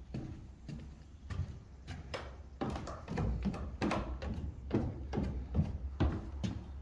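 Footsteps going down stairs: a series of dull thuds, spaced out at first and coming closer together and heavier after about two and a half seconds.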